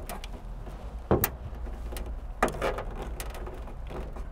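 Short plastic clicks and scrapes of a wiring-harness retaining clip being pressed with a flathead screwdriver and pulled out of the sheet-metal trunk lid of a 2001–2005 Honda Civic. The loudest pair of clicks comes about a second in, with more scattered clicks later. A low steady hum runs underneath.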